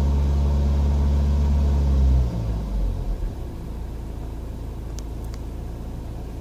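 BMW 118d's N47 four-cylinder diesel engine running steadily, then switched off about two seconds in, shuddering to a stop within about a second. A quieter low rumble remains, with two small clicks near the end.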